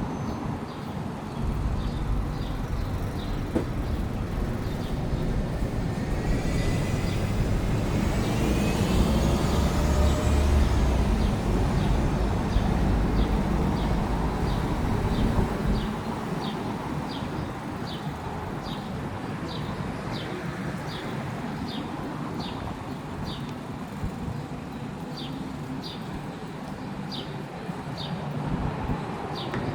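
City street traffic, with a heavy vehicle passing from about 6 to 16 seconds and a rising whine as it goes by. Light, evenly spaced ticks repeat about once a second underneath.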